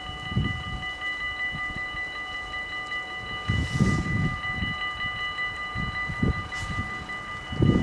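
Level-crossing warning bells of a Dutch automatic half-barrier crossing ringing steadily while the barriers are down, with irregular low rumbles underneath.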